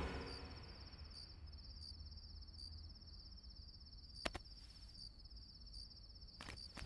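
Faint crickets chirping steadily over a low hum, with a sharp click about four seconds in and a few more clicks near the end.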